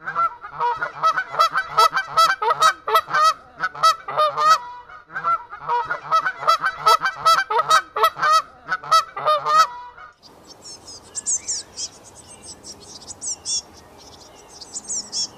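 A flock of large birds honking rapidly and loudly in two long bouts, with a short break about five seconds in. From about ten seconds in, small birds chirp high-pitched.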